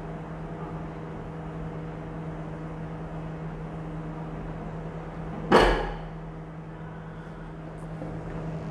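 Microwave oven running with a steady hum. A single sharp knock about halfway through is the loudest sound.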